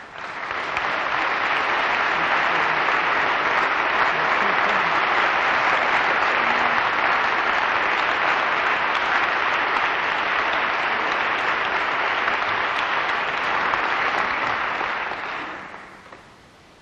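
A church audience applauding steadily to welcome a speaker to the lectern, fading out near the end.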